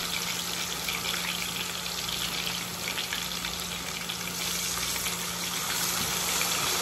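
Pork chops sizzling in shallow hot vegetable oil in a frying pan: a steady hiss with fine crackling, over a faint steady hum.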